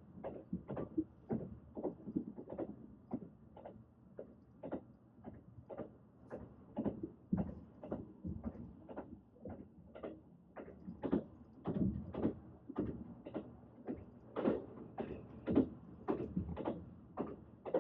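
Train running: a continual series of knocks, about two to three a second, over a low rumble.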